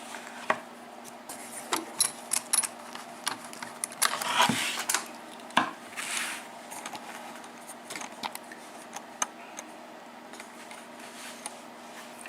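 Scattered small metal clicks and clinks from handling an Arrow KIK lock cylinder and lock-picking tools, with a brief rattle about four and a half seconds in. A faint steady hum sits underneath.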